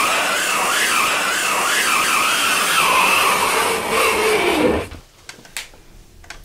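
Fingernails dragged down a board: a loud, wavering, scraping screech that drops in pitch at the end and cuts off sharply about five seconds in.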